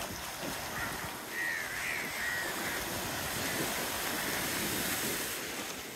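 Steady wash of surf and wind noise on the beach, with a few short wavering calls from about one to two and a half seconds in.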